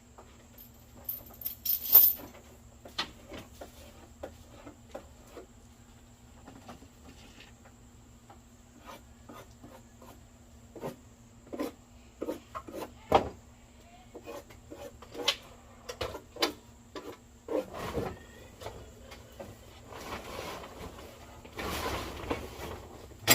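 Irregular knocks, taps and clatters of things being handled, the loudest about two seconds in, with a longer rustling stretch near the end.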